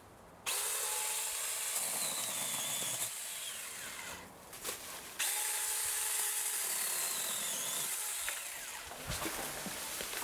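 Cordless battery-powered mini chainsaw with a 6-inch bar, its electric motor whining and chain running as it cuts small maple saplings. It runs in two stretches of a few seconds each, with a short stop between.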